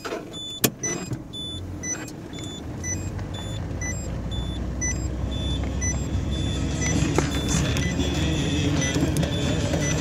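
Car driving on a gravel road, heard from inside the cabin: a low rumble that slowly grows louder. A short high electronic beep repeats about once a second, and a sharp click sounds under a second in.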